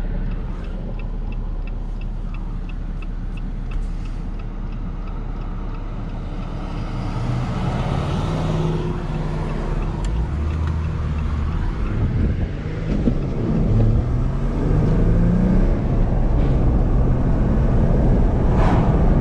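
Inside the cabin of a 2018 Jeep Wrangler JL Rubicon with its 3.6-litre V6 and six-speed manual, accelerating with the windows down: engine, wind and all-terrain tire noise, growing steadily louder as speed builds. A turn signal ticks about twice a second for the first few seconds.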